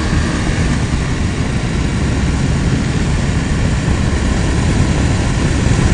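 Motorcycle running at road speed: a steady engine drone mixed with wind rush over the microphone.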